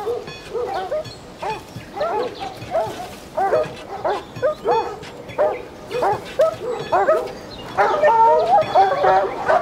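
Dogs barking again and again, the barks coming thicker and louder near the end.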